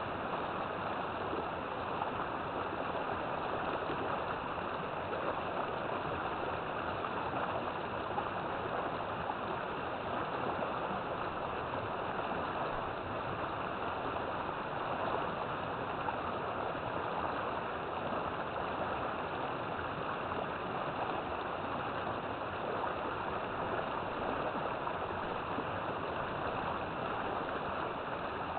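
River water flowing steadily over rocks, an even rushing and babbling with no change throughout.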